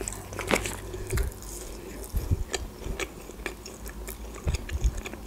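Close-up chewing of a chicken nugget, with many small wet mouth clicks and a few soft low thumps from the jaw.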